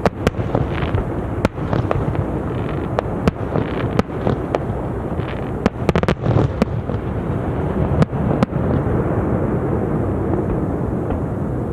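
Fireworks display: repeated sharp bangs and crackles over a continuous low rumble, with a rapid cluster of bangs about six seconds in. The bangs thin out after about eight and a half seconds, leaving the steady rumble.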